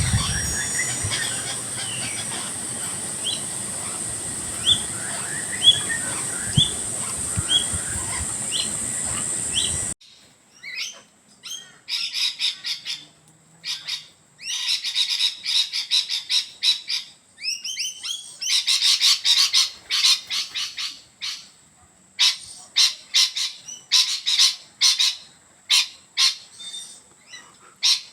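Birds calling. First a short rising chirp about once a second over a steady high hiss, then after an abrupt change about ten seconds in, bursts of harsh, rapid chattering calls that stop and start.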